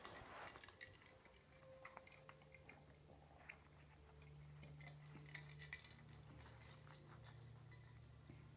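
Near silence: faint room tone with scattered soft clicks and a faint low hum that starts about two seconds in.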